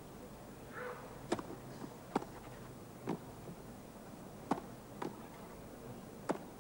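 Tennis rally: a serve and the strokes that follow, heard as about six sharp pocks of racquets striking the ball, roughly a second apart, over a hushed stadium crowd.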